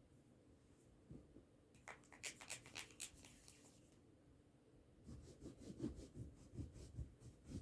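Faint quick rubbing strokes of a phone being scrubbed clean: a fast run of sharp strokes about two seconds in, then a second, duller run from about five seconds in.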